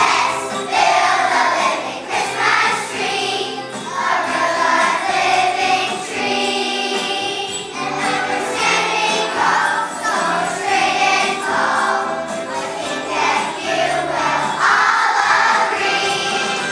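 Choir of young schoolchildren singing together over musical accompaniment.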